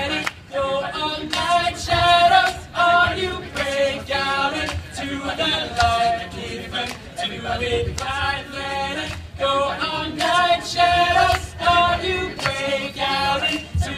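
All-male a cappella group singing a song in close harmony, voices amplified through microphones and PA loudspeakers.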